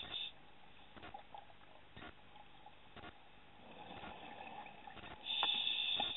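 Scuba diver's regulator underwater: quiet bubbling with scattered clicks, then a loud hissing breath starting about five seconds in.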